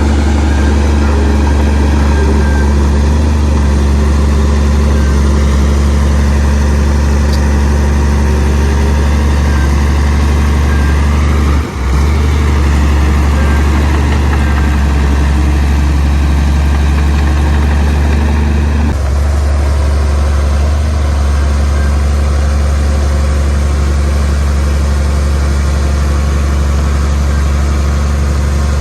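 Heavy diesel engine of earthmoving machinery running steadily with a strong low hum, dipping briefly about twelve seconds in and changing slightly in tone a little before twenty seconds.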